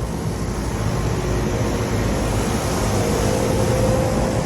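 Rooftop HVAC units running: a steady rush of fan and compressor noise with a low hum and a faint steady tone, growing a little louder toward the end.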